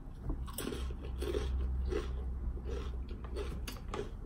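A person chewing a crunchy tortilla chip dipped in cheese sauce, close to the microphone: repeated crisp crunches of uneven spacing over a faint low hum.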